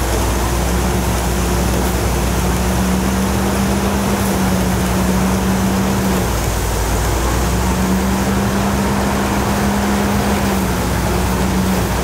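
Engine-driven rice threshing machine running steadily as rice sheaves are fed in by hand: a constant engine hum under a rushing hiss of the threshed straw and chaff being blown out, the hum wavering briefly about six seconds in.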